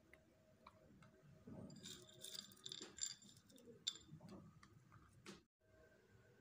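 Faint scattered clicks and light rustling as chopped walnut pieces are picked from a plate and dropped onto cake batter in foil tins.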